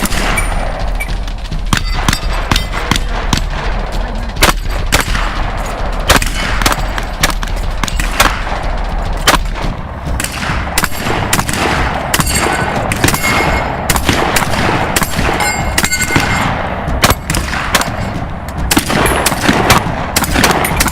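Shotguns fired in rapid, irregular strings of shots, with steel targets ringing when hit.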